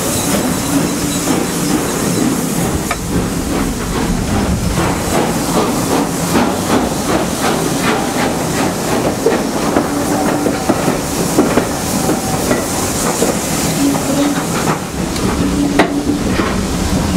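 Steam locomotive hissing steam as it works, with a run of rhythmic beats through the middle, heard close by from a carriage window.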